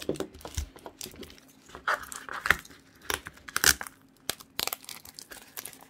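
Clear adhesive tape being pulled off its roll and pressed onto cardboard, with crackling and crinkling of tape and cardboard in the hands. Louder rasps of tape unrolling come about two seconds in, again half a second later, and near the middle.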